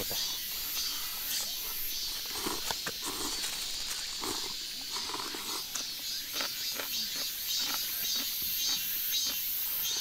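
A steady outdoor insect chorus chirring in a high, pulsing trill. Soft scattered clicks and faint voices sit beneath it.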